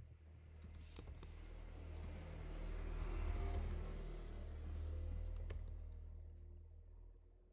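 A few computer keyboard key clicks over a low rumbling noise that swells up from about a second in, peaks midway, and fades away near the end.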